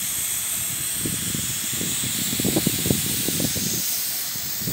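A steady high hiss, with muffled low knocks and rumbles through the middle.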